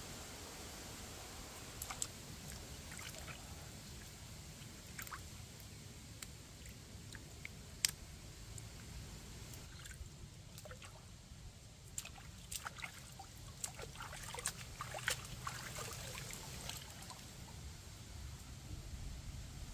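Water trickling and splashing lightly as vegetables are rinsed by hand in a shallow stream, with scattered sharp taps and clicks that are busiest in the second half.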